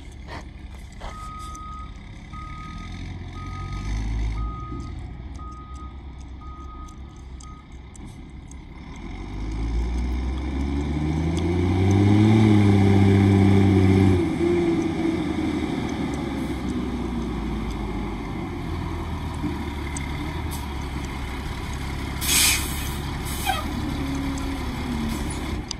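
Sterling dump truck's backup alarm beeping steadily several times as it reverses. Then its diesel engine revs up as it pulls forward, the pitch climbing to a loud peak before dropping back to a steady run. Near the end comes a short sharp hiss of the air brakes.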